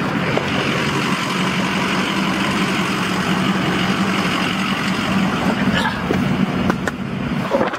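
A truck engine running steadily: a low hum with an even hiss over it, cutting off at the very end.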